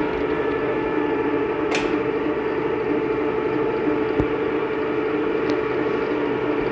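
Metal lathe running while a carbide WNMG insert on a boring bar bores out a C45 steel sleeve at 450 rpm: a steady machine hum with the noise of the cut. There is a single sharp click about two seconds in.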